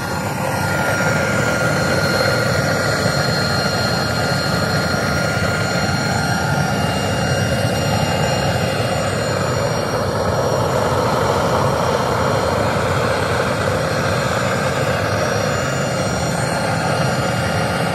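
Rotary melting furnace firing: a steady, loud rush of burner flame and blower air that holds even throughout.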